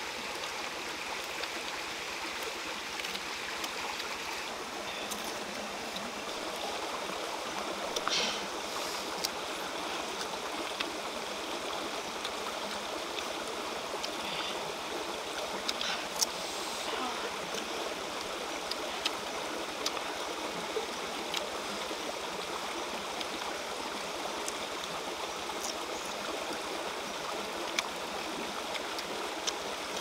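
Steady rush of a small rocky stream running over stones, with a few short, sharp crunches scattered through it as raw green guavas are bitten into.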